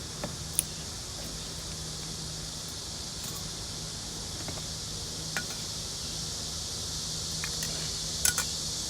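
Steady high-pitched insect chorus, with a faint low steady hum under it and a few light clinks of tableware.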